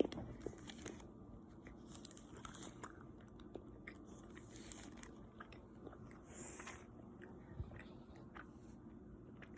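Faint chewing and mouth sounds of someone eating a small piece of chocolate bar, with soft scattered clicks.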